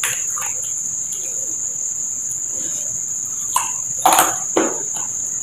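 Steady high-pitched chirring of insects, with a few loud chewing sounds from about three and a half to four and a half seconds in.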